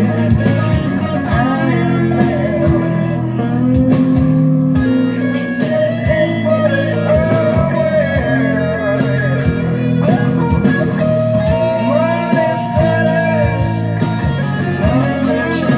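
Les Paul-style electric guitar played through a Mooer Brown Sound preamp pedal with a distorted tone, playing riffs and held lead notes with wavering vibrato over a backing track of drums and bass.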